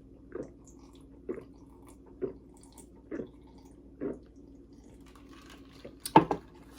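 A person gulping a fizzy drink over ice, one swallow about every second for five swallows, then a louder short burst near the end.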